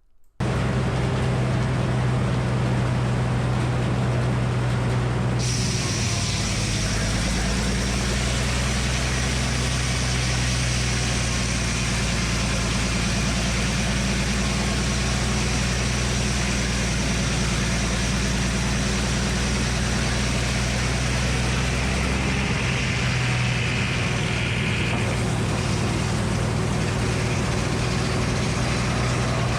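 A 48-inch Frick circular sawmill and the engine that drives it, running steadily. About six seconds in a high whine joins, and the engine's low note drops lower until about 22 seconds in.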